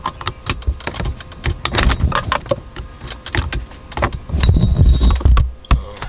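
Metal pick clicking and scraping against the plastic clip tabs of a BMW E36 steering-column wiper switch as it is pried up, in many short sharp clicks, with dull thumps from about four seconds in.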